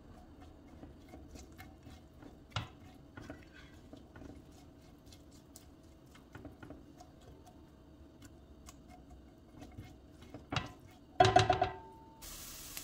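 Silicone spatula stirring chopped onion in a nonstick pot: faint scattered taps and scrapes. Near the end a louder clatter with a short ring, then a steady frying sizzle starts just before the end.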